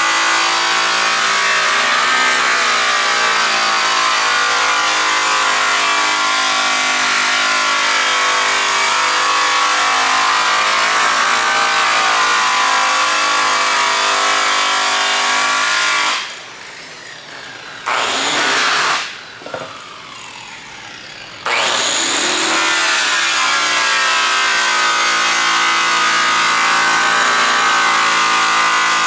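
High-speed rotary polisher with a yellow compound-loaded buffing wheel running against an aluminum driveshaft: a steady motor whine with a rubbing hiss. A little past halfway the sound falls away twice as the tool spins down, then spins back up and runs steadily again.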